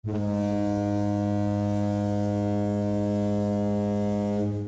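One long, steady low-pitched ship's horn blast, lasting about four and a half seconds and cutting off suddenly.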